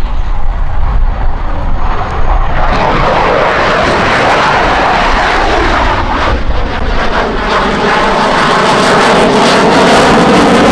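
EA-18G Growler's twin General Electric F414 turbofans as the jet flies past overhead. Its engine noise comes in strongly about two and a half seconds in and keeps building louder toward the end as the jet draws near.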